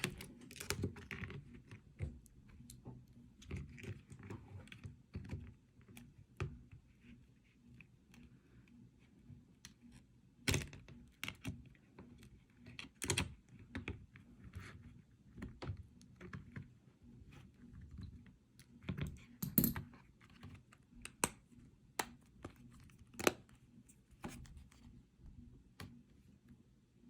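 Irregular small clicks and taps of an iPhone 7 Plus and small repair tools being handled during final reassembly, with a few sharper knocks, over a low steady hum.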